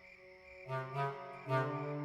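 Background music: slow, held melodic notes come in about two-thirds of a second in, after a nearly quiet start, and a second, louder note follows about halfway through.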